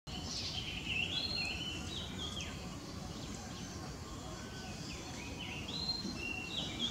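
Thin, high-pitched calls made of short level notes that jump abruptly up and down in pitch, in two spells, over a steady low background rumble.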